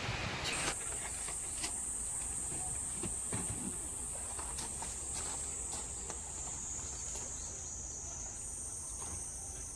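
Summer insects chirring in a steady, high-pitched drone, with a few faint ticks underneath.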